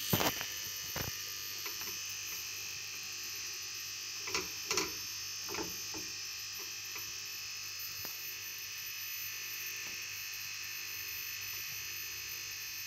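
Steady hiss from the stove under a hot iron tawa as a stuffed paratha cooks. A knock comes right at the start, and a few soft pats and knocks around four to six seconds in, as a hand presses the dough on the griddle.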